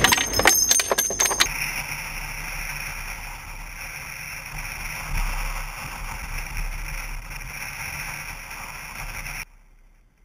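A short burst from an M2 Browning .50-calibre heavy machine gun, about a second and a half long. It is followed by a steady vehicle running noise with a faint high whine, which cuts off suddenly near the end.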